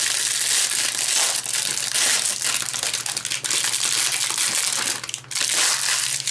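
Thin clear plastic bag crinkling and crackling in quick, irregular bursts as a small vinyl figure is worked out of it by hand, easing off briefly near the end.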